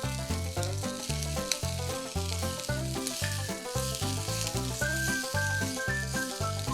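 Meat sizzling as it grills for yakiniku, under background music with a steady beat that is the loudest thing heard.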